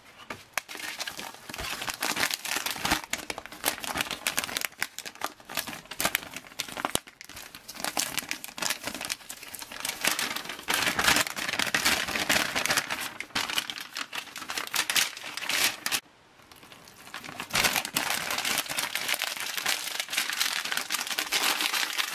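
Crinkling and rustling of MRE packaging being handled: the foil-laminate meal pouch and the plastic flameless ration heater sleeve crackling in the hands. There is a short pause about two-thirds of the way through, then the crinkling resumes.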